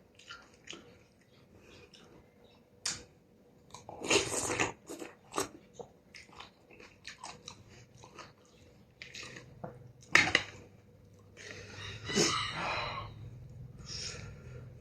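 A person eating beef noodle soup close to the microphone: chewing and mouth smacks in an irregular run, with louder noisy bursts about four seconds in and again around ten and twelve seconds.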